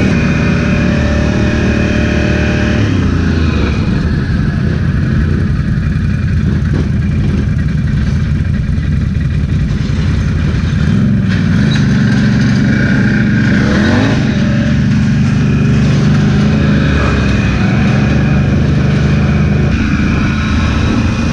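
ATV engine running under throttle on a trail ride, loud and continuous, its pitch stepping down and back up several times as the rider eases off and accelerates again.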